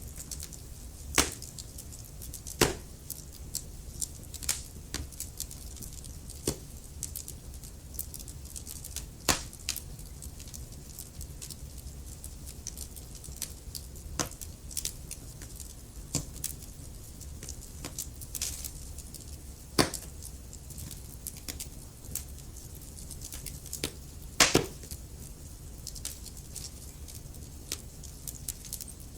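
Wood fire burning in a fireplace: irregular sharp crackles and pops over a steady low rumble of the flames, with louder snaps about a second in, at about two and a half seconds, and near nine, twenty and twenty-four seconds.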